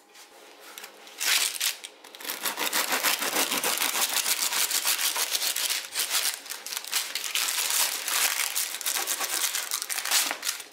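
A serrated bread knife sawing through the hard crust of a freshly baked no-knead loaf. It starts about a second in and goes on as a fast, dense run of crackles until near the end.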